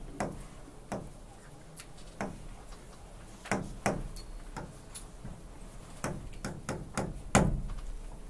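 Stylus tapping and clicking on the glass of an interactive writing display while words are written, a string of irregular sharp ticks with a few louder taps.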